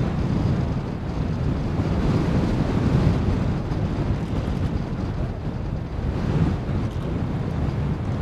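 Wind noise on the microphone over the distant, steady drone of a Pitts S1-S aerobatic biplane's four-cylinder engine and propeller high overhead.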